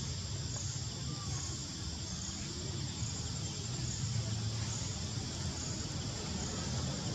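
Steady high-pitched insect chorus from the forest canopy, with a steady low rumble underneath.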